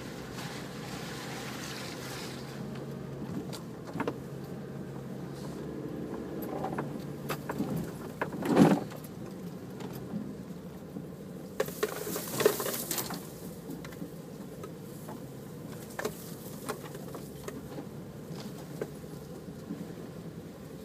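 Four-wheel-drive vehicle's engine running steadily on a rough off-road track, with knocks and rattles as it jolts over bumps. The loudest knock comes about eight seconds in, with a cluster of rattles a few seconds later.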